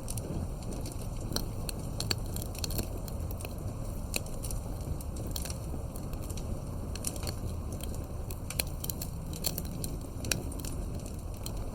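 Wood fire crackling: irregular sharp pops and snaps over a steady low rumble, with a louder pop near the end.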